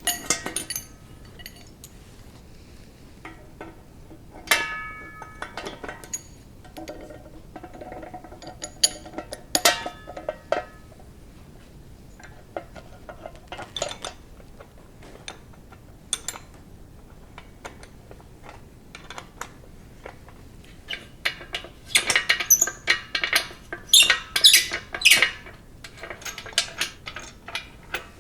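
Metal parts of a vintage paint pressure pot clinking and knocking as it is reassembled by hand, some knocks ringing briefly, with a run of rapid metallic clatter about three-quarters of the way through.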